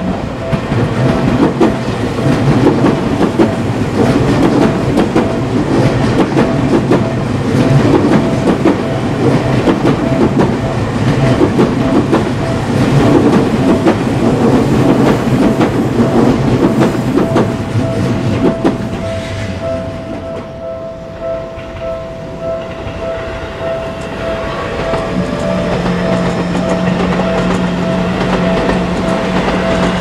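Japanese level-crossing warning bell ringing steadily while an electric commuter train rumbles and clatters over the rail joints for about nineteen seconds. After it clears the bell keeps ringing, and a second train comes through with a steady low hum near the end.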